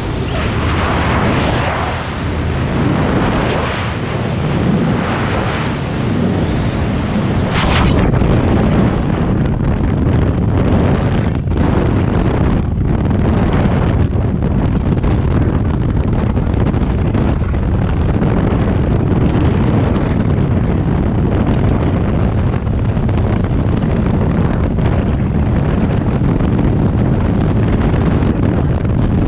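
Freefall wind buffeting a skydiver's camera microphone: a loud, unbroken rush of wind noise. It is fuller and hissier for the first eight seconds, gives a short sharp crackle, then settles into a steadier, deeper rumble.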